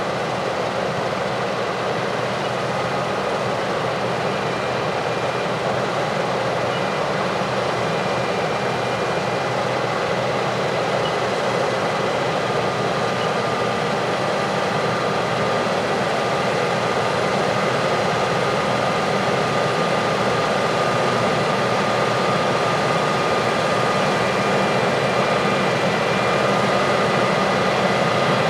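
Heavy harvest machinery running steadily: a dense engine and machine drone with a faint high whine over it, growing slowly louder.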